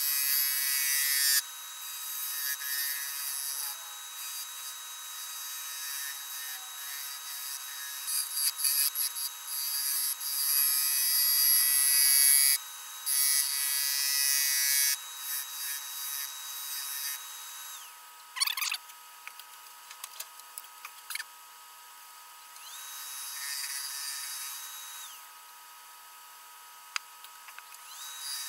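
Walnut goblet spinning on a wood lathe while a hand-held turning tool cuts and scrapes it, in several long hissing passes with quieter gaps between, over a steady high whine.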